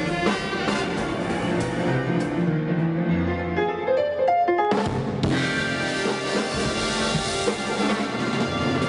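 Swing big band with drum kit playing. About two and a half seconds in, it thins to a short run of single notes, then the full band comes back in sharply near the five-second mark.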